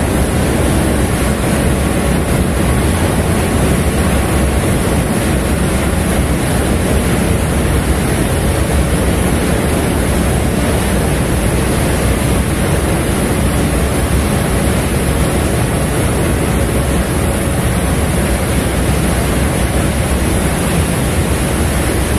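Steady low rumble of a ship's engine with a faint machinery hum, and wind blowing across the microphone.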